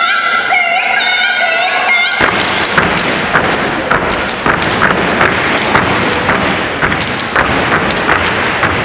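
Step team stomping boots and clapping in unison on a gym floor: a fast, loud run of sharp thuds and claps that starts a little after two seconds in. Before it, a short high-pitched sung phrase.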